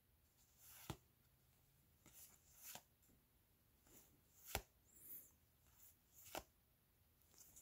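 Near silence with a handful of faint, short clicks and taps, roughly a second apart, from trading cards being slid one by one across a stack in gloved hands.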